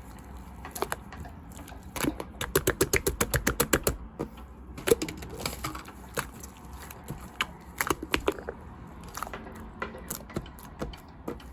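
Light clicks and taps. About two seconds in there is a quick run of roughly eight taps a second, with scattered single clicks the rest of the time.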